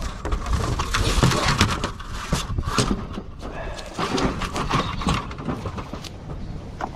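Wind buffeting the microphone in strong gusts, with irregular knocks and rustling.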